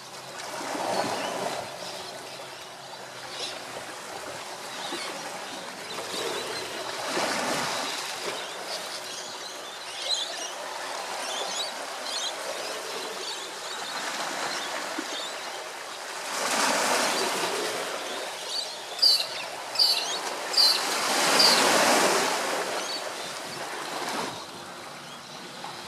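Small waves washing onto the shore, swelling and falling back every few seconds. A bird gives a few short, high chirps about three quarters of the way through.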